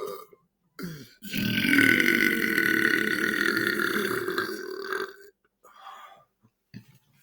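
A man's long, loud belch, held for about four seconds, brought on by drinking carbonated water. A short throat sound comes just before it, about a second in.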